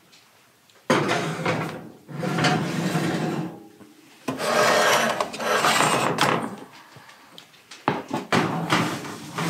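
Metal roasting pans of whole chickens scraping and sliding along oven racks as they are pushed into the oven, in four separate bursts.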